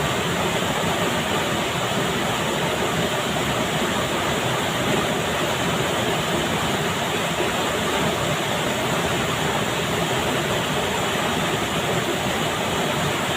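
Steady rushing of flowing stream water, an even noise with no breaks.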